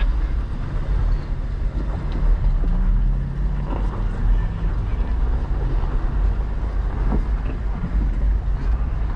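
Off-road vehicle engine running steadily, with a brief rise in revs a little under three seconds in, then settling again.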